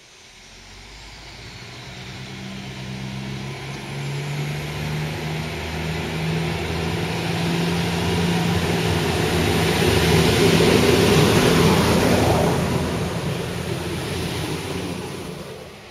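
Bombardier Talent diesel multiple unit running toward the listener and passing close beneath. The engine hum and the rumble of the wheels on the track grow steadily louder, are loudest a little after the middle, then begin to fade near the end.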